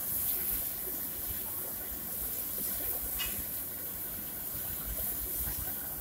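Steady hiss of steam from a 1959 Jung (Jungenthal, Germany) steam locomotive, with a faint low rumble underneath.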